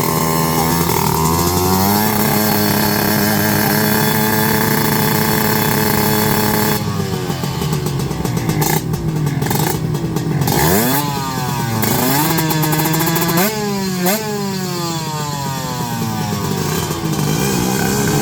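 Racing motorcycle engines. A steady, high engine drone holds for the first several seconds, then from about seven seconds in come repeated revs, the pitch climbing and dropping sharply again and again.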